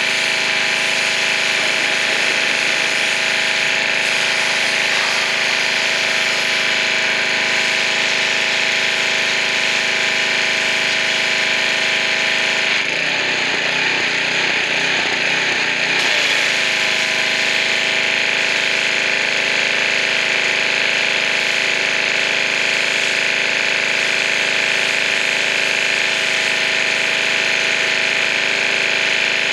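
Pressure washer running steadily with its spray hissing, its motor and pump making a steady hum. For about three seconds, starting around the middle, the hum breaks into a rough, uneven rattle, then settles back.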